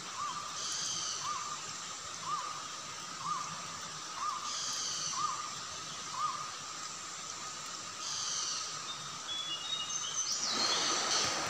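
Rainforest river ambience: a steady rushing hiss of water, with a short rising-and-falling call repeated about once a second for the first half and three brief bursts of higher chirping. Near the end the rushing noise swells and a few high gliding chirps come in.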